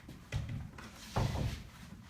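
Two dull wooden thumps about a second apart: an old interior door being pushed shut against its frame and latched.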